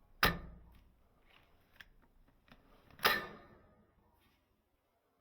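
Cyma 708 spring airsoft sniper rifle firing twice, two sharp shots about three seconds apart, with small clicks between as the bolt is worked.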